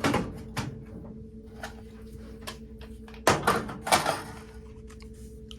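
Rifle magazines being set into the magazine holders of a steel gun safe: a few light clicks and knocks, with two louder clunks about three and four seconds in.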